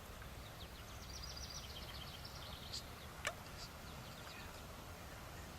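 Faint outdoor field ambience with a small songbird singing a quick run of high chirps, and a single sharp click about three seconds in.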